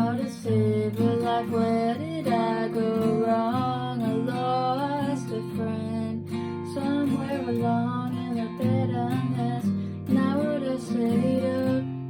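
Music: strummed acoustic guitar under a gliding melodic line with no clear words.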